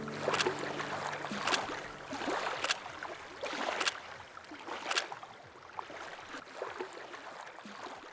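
Water splashing in a steady rhythm, five strokes about a second apart, then fainter lapping water.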